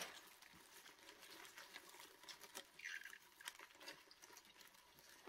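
Giant burrowing cockroaches crawling over dry gum leaves and substrate in a plastic tub: faint, irregular scratching and rustling, with one brief higher sound about three seconds in.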